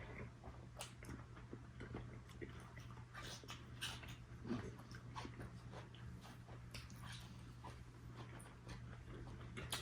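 Faint eating sounds: chewing and scattered small clicks and taps of food and dishes, over a steady low hum.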